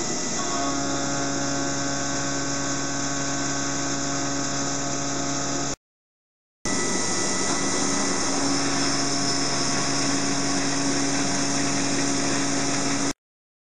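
Mikron HPM 600 HD milling machine contour-milling a 16MnCr5 steel block with a 16 mm four-flute solid carbide end mill: a steady cutting sound with several droning tones, the cut settling in about half a second in. It runs as two passes, first with the tool in a hydraulic expansion chuck, then in a precision collet chuck, with a second of silence between them.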